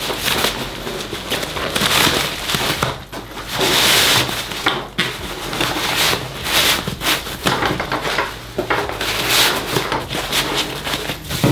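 Thin rain cover rustling and crinkling as it is pulled and smoothed by hand over a packed backpack, in irregular swells.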